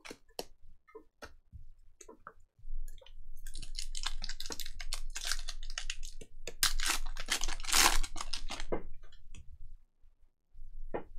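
A trading-card pack wrapper being torn open and crinkled, after a few light clicks of cards being handled. The crinkling is loudest about two-thirds of the way in and stops shortly before the end.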